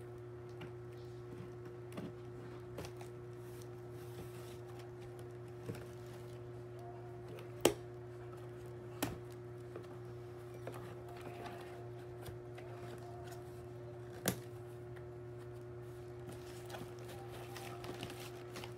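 Scissors snipping through a cardboard shipping box and its packing tape, with the box rustled by hand: scattered sharp clicks, three louder than the rest, over a steady low hum.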